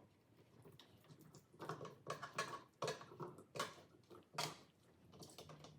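Faint, scattered clicks, taps and soft scraping of kitchenware being handled as cooked liver is put into a Tupperware Extra Chef hand chopper bowl.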